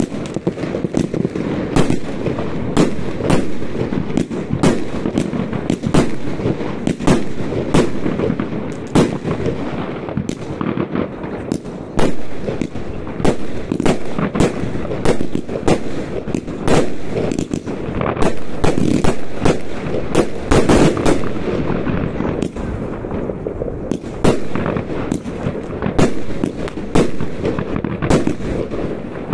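New Year's Eve fireworks going off continuously: a steady run of sharp bangs, several a second, over a dense background of crackling and distant explosions.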